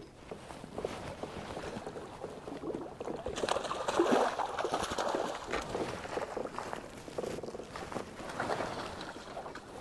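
Water sloshing and splashing against a canoe, with scattered light knocks and rattles. It is busiest and loudest about four seconds in.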